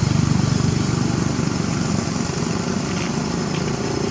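A small engine running steadily with a low, fast pulsing rumble that eases slightly about a second in.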